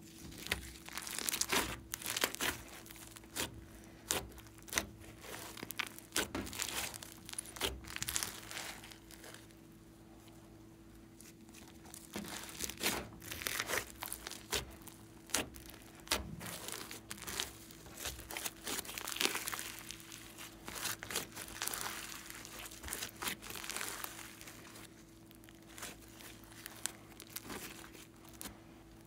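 Pink slime with small foam beads being stretched, pressed and kneaded by hand, giving irregular sticky crackling and popping clicks with tearing sounds as it pulls apart, easing off briefly about a third of the way in.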